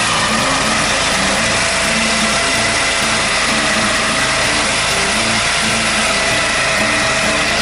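Portable sawmill's engine running steadily, with background music underneath.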